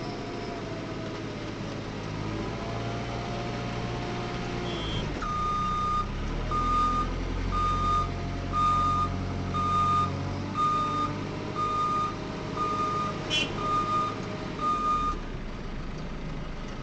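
Diesel engine of a JCB 3CX backhoe loader running and revving up, then a reversing alarm beeps ten times, about once a second, as a vehicle backs up, with a short sharp click near the end of the beeping.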